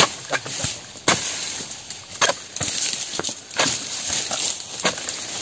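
A pole-mounted palm harvesting chisel (dodos) hacking at oil palm fronds: about seven sharp chopping strikes at uneven intervals, with a rustling of fronds between them.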